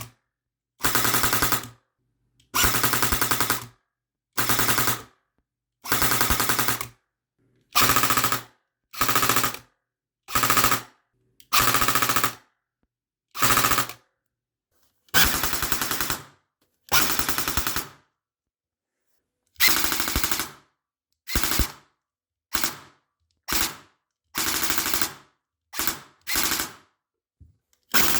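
Airsoft electric gun with a V3 gearbox firing full-auto in about twenty short bursts, each half a second to a second and a half long, with brief silent pauses between. The gearbox cycles in a rapid, even rattle within each burst.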